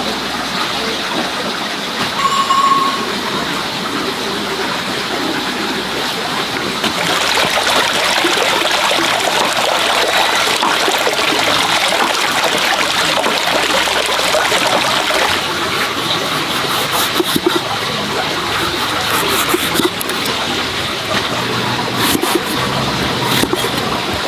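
Water pouring steadily from a bamboo pipe into a basin, a little louder after the first few seconds. Near the end, a cleaver chopping carrots on a cutting board.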